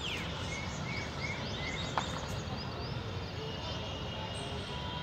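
Several birds chirping, with quick falling calls and short repeated notes, over a steady low background noise. A single sharp click about two seconds in.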